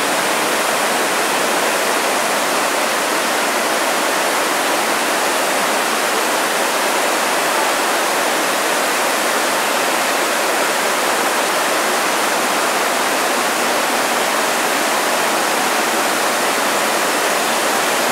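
Steady rush of the World Trade Center memorial pool's waterfalls: a continuous sheet of water falling down the pool walls into the basin below.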